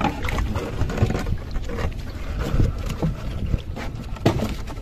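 Steady low rumble aboard a small fishing boat at sea, with a few light knocks.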